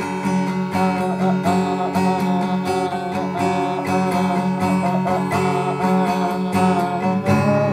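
Acoustic guitar strummed steadily, chords ringing on between strokes as a song accompaniment.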